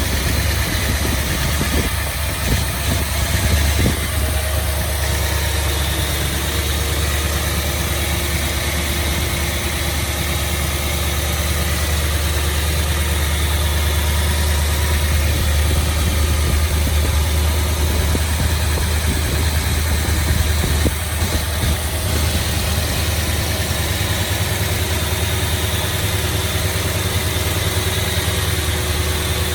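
1969 Dodge Charger's 383 V8 with a flat-tappet cam, idling steadily. It runs without the lifter tick it had before, which was cured by a change to 20W-50 oil.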